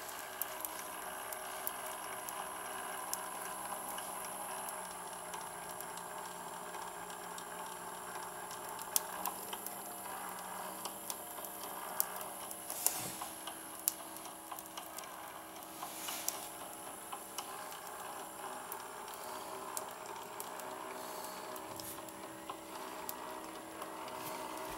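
Small model horizontal steam engine running on the bench: a steady hiss with light mechanical ticking from its valve gear and the odd sharper click.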